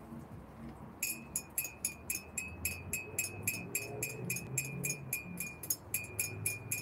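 A fast, even series of sharp chinking clicks, about four to five a second, each with the same high ring, starting about a second in and keeping on steadily.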